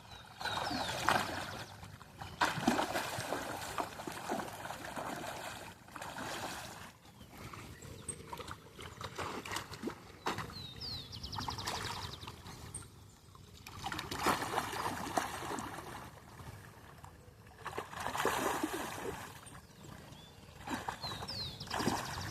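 Water splashing and sloshing in irregular bursts, with a few short high chirps.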